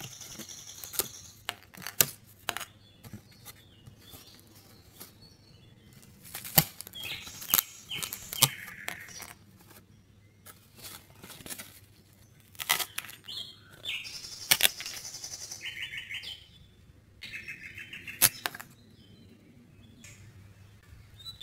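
Die-cut pieces of a 3D puzzle being pressed out of their printed sheet by hand: sharp snaps as pieces break free, between short, high-pitched scraping sounds.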